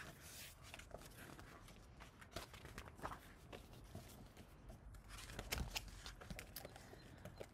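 Faint rustling and soft scattered clicks of a paper picture book being opened and its pages turned by hand.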